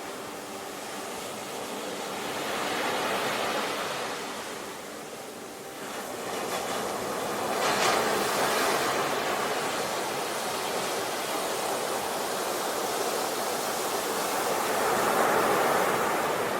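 Ocean waves washing on the shore, swelling and ebbing three times, with a sharper wave breaking about eight seconds in.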